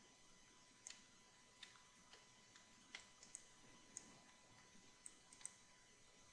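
Faint, scattered clicks of a computer mouse and keyboard, about nine spread over the few seconds, some in quick pairs, over near-silent room tone.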